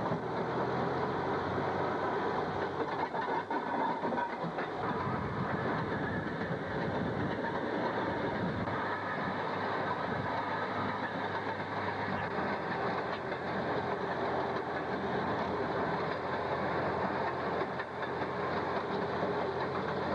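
Railroad motor car running down the track at speed: a steady mix of its two-stroke engine and steel wheels rolling on the rails, heard from on board.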